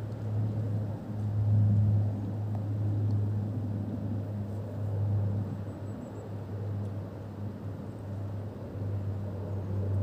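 Lockheed CC-130J Hercules passing overhead: the steady low propeller drone of its four turboprop engines, a little louder about a second and a half in.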